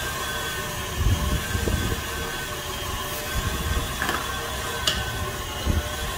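Steady machinery hum with a few faint steady tones over it, broken by a few low thuds and one sharp click about five seconds in.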